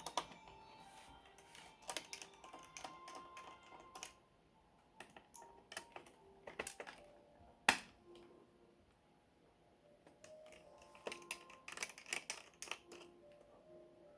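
Quiet background music with scattered sharp clicks and taps from tools and plastic parts as a laptop is taken apart. The loudest single click comes about three-quarters of the way in.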